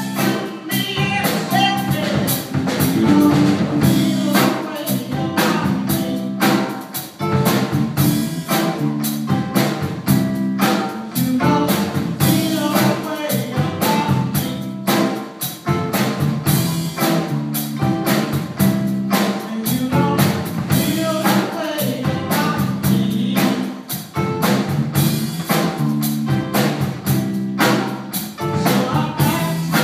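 Live blues band playing, with a drum kit keeping a steady beat.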